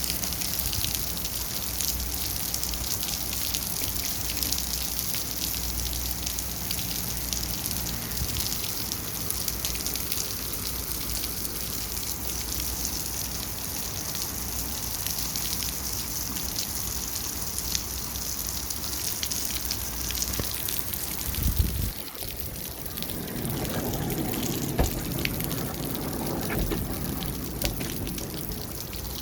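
Rain falling steadily with running, splashing water, a dense hiss full of fine drop clicks. About 22 seconds in it briefly dips, then a lower rushing sound joins.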